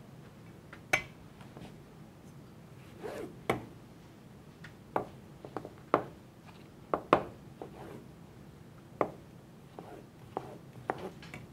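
Kitchen utensils and dishes being handled as a serving plate is garnished: irregular sharp clicks and light knocks, about a dozen, over a low steady room hum.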